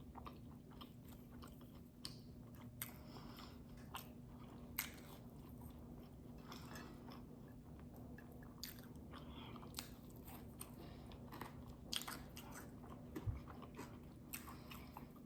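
Close-miked chewing of a bacon and avocado breakfast sandwich and fries: soft wet mouth sounds with scattered small crunches and clicks, over a faint steady hum.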